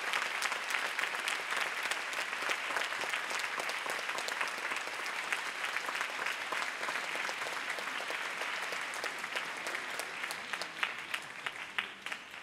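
Audience applauding, a dense steady clapping that thins near the end into scattered individual claps as it dies away.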